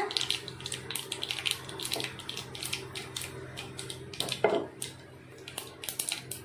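Mustard seeds and urad dal spluttering in hot oil for a tempering: quick, irregular crackles and pops, the sign that the seeds have popped and the tempering is ready. A steady low hum runs underneath.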